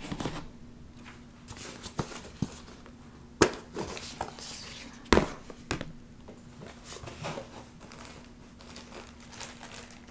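Plastic crinkling and rustling with a handful of sharp light clicks and knocks, the loudest about three and a half and five seconds in: embroidery floss, bags and plastic storage bins being handled and sorted.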